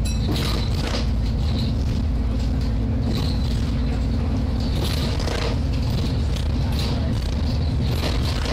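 Alexander Dennis Enviro 400 double-decker bus with a Voith automatic gearbox, heard from inside while under way: a steady low engine drone whose pitch shifts about halfway through, with a few short rattles from the body.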